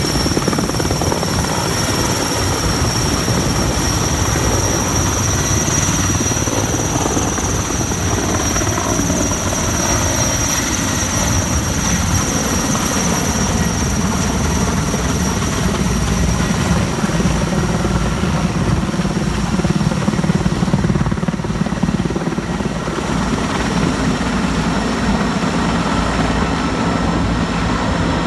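Sikorsky S-64 Air Crane heavy-lift helicopter hovering and flying with an underslung load, its six-blade main rotor beating in a fast steady chop over the high whine of its twin turboshaft engines. The high whine fades somewhat in the last several seconds as the helicopter moves overhead.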